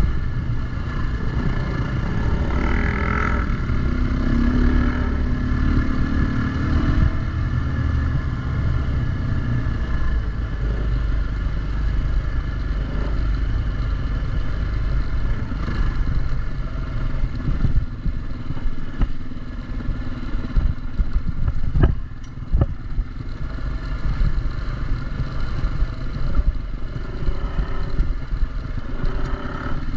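Dirt bike engine running while being ridden, the revs rising and falling, with a few sharp knocks about two-thirds of the way through.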